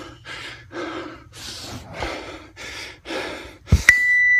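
A man panting hard after an all-out barbell workout, about two heavy gasping breaths a second. Near the end a knock, then a loud steady electronic beep starts and holds.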